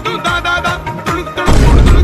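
Background music with a steady drum beat. About one and a half seconds in, a loud low boom cuts in over it for about half a second.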